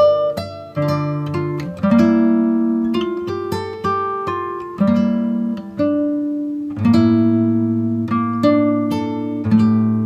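Background music: acoustic guitar picking and strumming chords, each note plucked sharply and ringing out.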